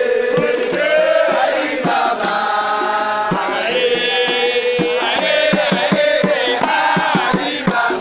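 Several voices chanting a song together over the strokes of small laced hand drums, with the drum strokes coming thicker in the second half.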